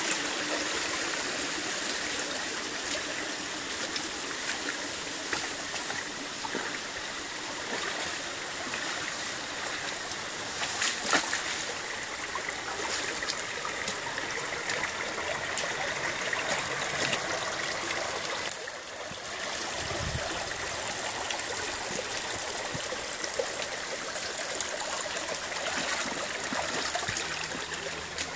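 Small rocky stream running over stones in shallow rapids: a steady rush of water with a brief louder spot about eleven seconds in.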